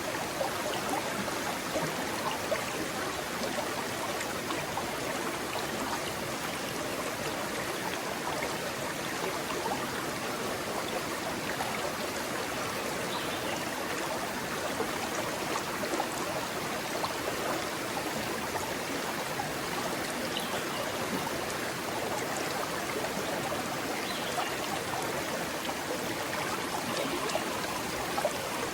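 Shallow rocky stream running over stones: a steady rush and babble of water.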